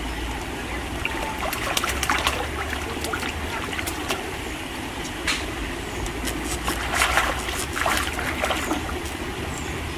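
Water splashing and dribbling in irregular bursts, with clusters of sharper splashes about two seconds in and again around seven to eight seconds in, over a steady low rumble.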